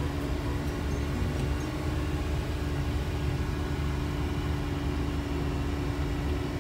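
Steady engine and road rumble from inside a moving car, with a constant low hum.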